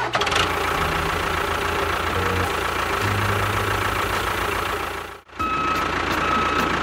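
A motor or engine running steadily with a fast low pulsing and a faint steady whine. It cuts out briefly about five seconds in, then carries on.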